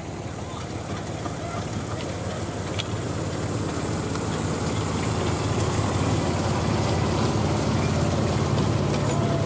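Engine of a miniature-railway diesel-hydraulic locomotive running as it pulls a train of carriages past, a steady hum that grows louder as it draws near.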